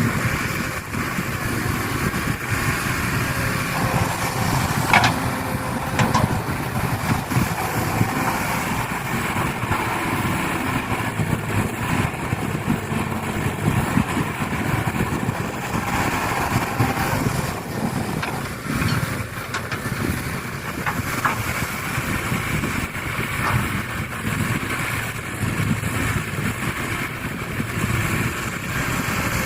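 Excavator and dump truck at work: a steady engine noise, with two sharp knocks about five and six seconds in.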